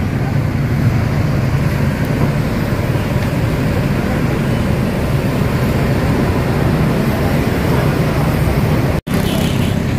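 Mercedes-Benz coach's diesel engine idling with a steady low hum, while the bus stands ready to leave. The sound cuts out for an instant about nine seconds in.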